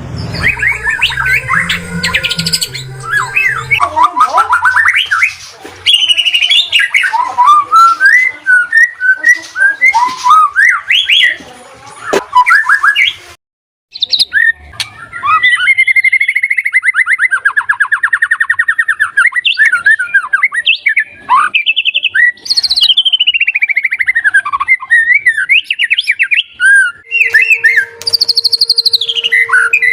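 White-rumped shama (murai batu) singing a varied, fast-changing song of whistled glides, rapid trills and chattering notes. It breaks off briefly about halfway.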